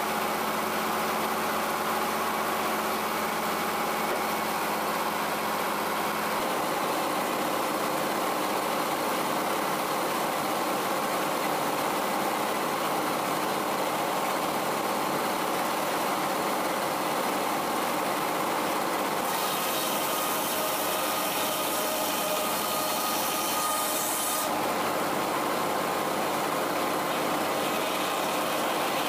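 00 Frick circular sawmill running: its power unit and the big spinning saw blade give a steady mechanical din, with a brighter hiss for several seconds about two-thirds of the way in.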